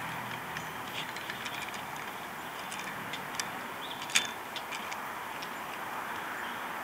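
Metal wing corkscrew being worked into a tight cork in a glass bottle: scattered small metallic clicks and ticks, the sharpest about four seconds in as the wings ride up, over a steady low hiss.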